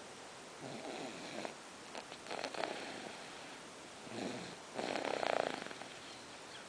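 Soft snoring from someone asleep: slow, rhythmic breaths with about four snore sounds, the loudest about five seconds in.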